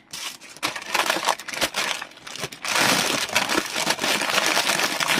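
Clear plastic bag crinkling and rustling as hands pack small zip bags of diamond-painting drills into it. The crinkling is patchy at first and grows fuller and steadier about three seconds in.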